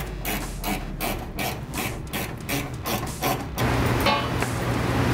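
Ratchet wrench being cranked in quick back-and-forth strokes, about three a second. About three and a half seconds in the ratcheting stops and a steady hum with a low drone takes over.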